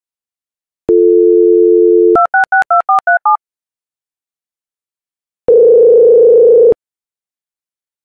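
Telephone sounds: a steady dial tone for about a second, then about seven quick touch-tone (DTMF) beeps as a number is dialled. After a pause, one ringback tone of about a second sounds, showing the called line is ringing.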